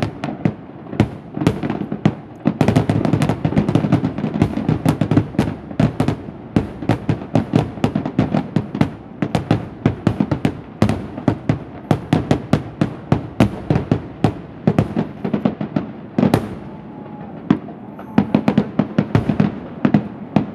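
Fireworks finale barrage: shell bursts going off in rapid, continuous succession, several bangs a second with echoing rumble between them, easing slightly about two-thirds of the way through before building again.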